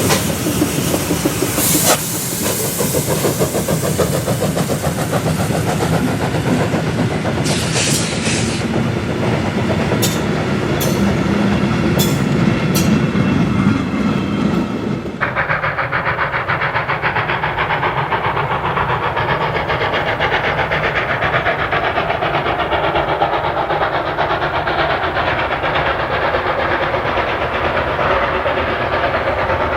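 Steam train hauled by the 1924 locomotive BR 98 886 running along the line, wheels clattering over the rail joints with steam hiss and a few clanks. About halfway through the sound changes abruptly and the high hiss drops away, leaving a steady running noise.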